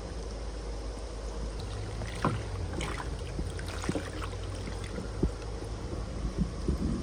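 Water sloshing and splashing in a tub while koi fry are netted and sorted, with a few short, sharp splashes or drips over a steady low background noise.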